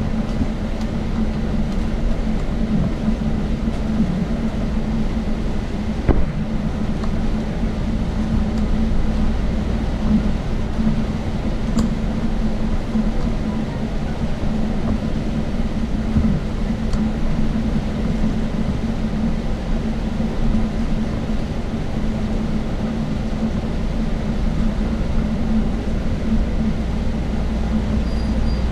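Steady low rumble and hum of a moving vehicle, with one short knock about six seconds in.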